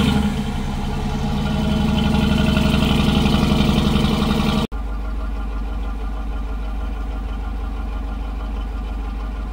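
The stock exhaust of a Dodge Durango R/T's 5.7-litre Hemi V8, heard at the tailpipe, idling just after start-up. About halfway through the sound cuts out for a moment, then it settles into a steadier, slightly quieter idle.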